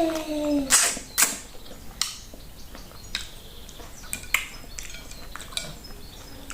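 Wet, scattered mouth smacks and clicks of someone eating fufu and sticky okra soup by hand, a few loud ones about a second in and softer ones after. It opens on the tail of a falling, hummed "mmm" of enjoyment.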